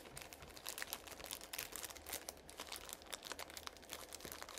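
Irregular crinkling with many small, quick clicks as pieces of jewelry are handled and sorted.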